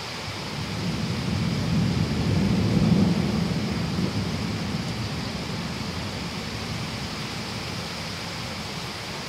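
Heavy rain falling steadily, with a long low roll of thunder that builds from about half a second in, peaks around three seconds and fades over the next few seconds.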